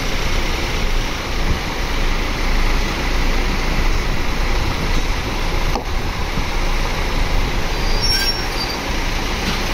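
Tour coaches' diesel engines running, one coach pulling away slowly across the lot: a steady low rumble, with a short high squeak about eight seconds in.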